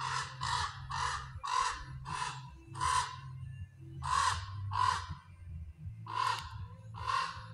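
Adult common raven giving a series of harsh, repeated caws, about two a second at first, then in pairs and singles with short pauses. The filmer thinks the calling may be alarm at her being close to the nest, with the fledglings nearby.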